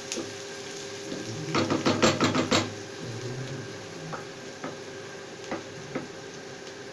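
Chopped onions sizzling in hot ghee in a nonstick frying pan while a wooden spatula stirs them. The spatula knocks and scrapes against the pan in a quick cluster from about one and a half seconds in, then gives a few single taps.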